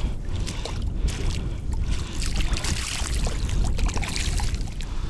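Shallow river water splashing and lapping at a sandy edge as a small released fish swims off, over a steady low wind rumble on the microphone.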